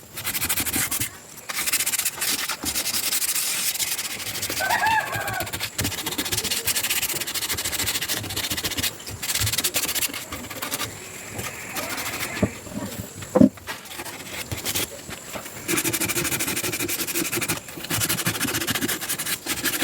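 Hand sanding of carved ironwood: fast, rough rubbing strokes, broken by a few short pauses.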